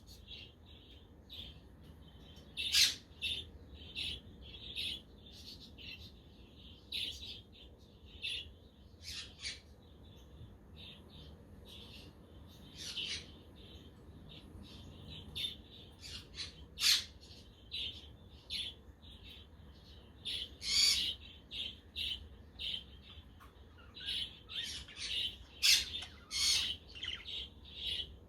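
A flock of budgerigars chattering and chirping continuously, with louder, sharp calls every few seconds that come thicker toward the end.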